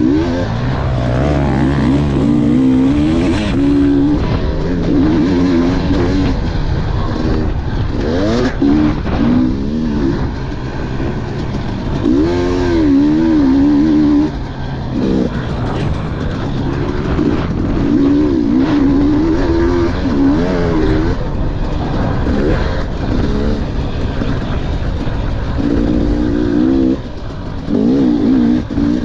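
KTM dirt bike engine heard from on board, its note rising and falling again and again as the rider works the throttle through the turns and straights. The engine drops back briefly about halfway through and again near the end.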